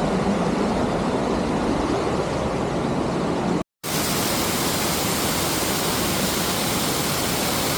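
Steady rushing roar of a waterfall. It breaks off in a moment of silence a little past three seconds in, then comes back brighter and hissier.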